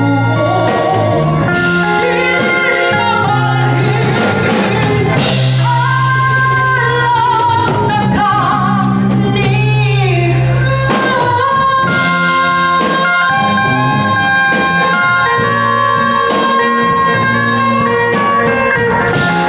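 A woman singing with a live band of keyboard, guitar and drums: a wavering sung melody over steady bass notes and regular drum hits.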